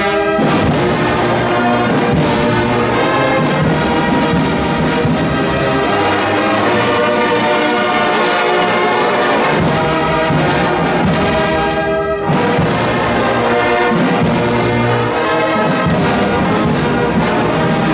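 Brass band playing a hymn in sustained full chords, with a brief break about twelve seconds in.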